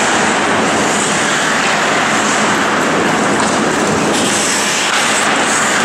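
Loud, steady din of an indoor ice hockey rink during play, a continuous noisy rumble with no single sound standing out.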